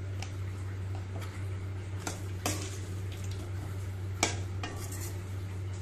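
Metal ladle stirring tamarind-water curry in a stainless steel kadai, clinking sharply against the pan a few times, about two seconds in and again about four seconds in, over a steady low hum.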